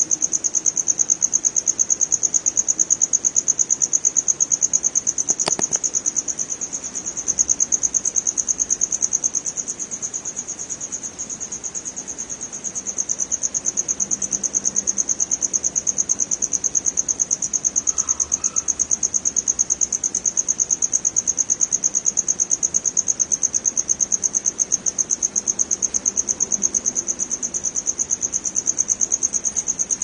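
Crickets chirping: a steady, high-pitched trill of rapid pulses that eases off for a few seconds around the ten-second mark, with a single faint click about five seconds in.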